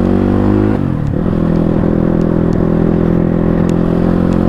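CX300C motorcycle engine running with the dB killer removed from the exhaust, giving its raw, unbaffled exhaust note. The revs dip briefly about a second in and then hold steady.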